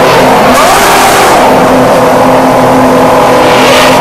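Formula One cars' 2.4-litre V8 engines running very loud at close range as the cars roll into their grid slots, several engines holding steady pitches together. One revs up about half a second in, and another swells louder as it passes near the end.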